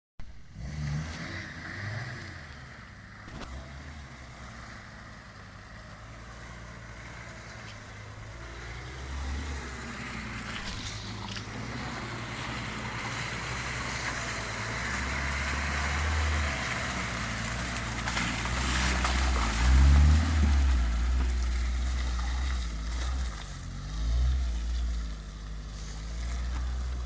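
Suzuki Samurai engine running off-road, revving up and down under load with its pitch rising and falling; the loudest rev comes about two-thirds of the way through.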